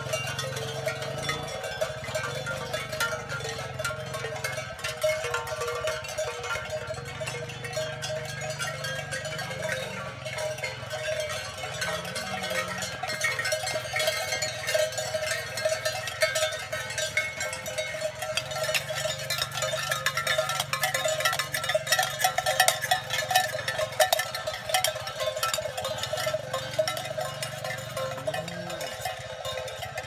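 Herd of cattle walking along a paved road: many hooves clattering on the asphalt, with clanking bells throughout, densest about two-thirds of the way in. A cow bawls briefly near the middle and again near the end.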